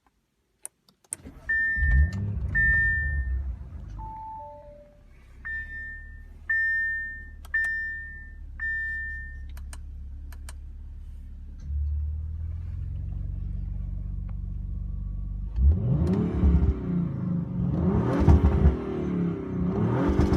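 Audi RS5's twin-turbo V6 starting about a second in, then idling while the car's electronic chimes beep several times; from about two-thirds of the way through, the engine is revved in a series of blips.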